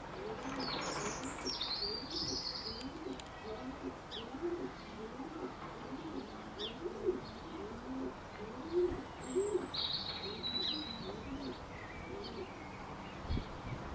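A pigeon cooing in a long run of low, evenly repeated notes, with small birds chirping higher up now and then.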